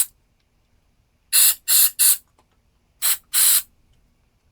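Aerosol carburetor cleaner sprayed in short bursts into the passages of a small-engine carburetor: three quick squirts about a second and a half in, then two more about three seconds in.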